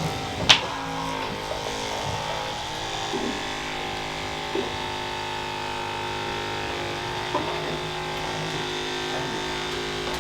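Electric massager motor buzzing steadily, with one sharp click about half a second in.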